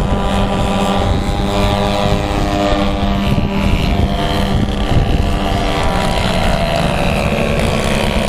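Several radio-controlled aerobatic airplanes flying together, their engines and propellers running as a steady drone. Several engine pitches overlap and slowly rise and fall as the planes throttle and manoeuvre.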